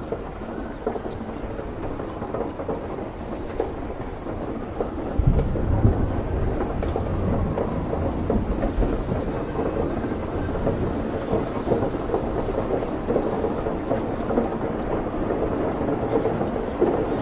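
Heavy rainstorm: steady rain, with a long roll of thunder rumbling in about five seconds in and lingering.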